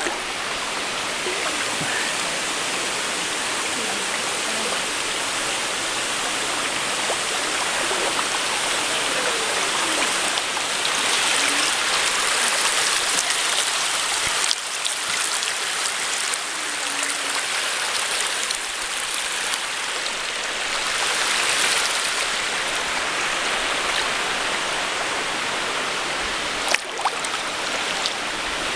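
Water rushing steadily over rocks at the top of a waterfall, swelling a little now and then. One sharp knock near the end.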